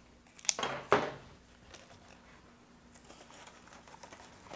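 Rustling and two sharp clicks about half a second and a second in as flower stems are handled and pushed into a centerpiece arrangement, then faint rustling.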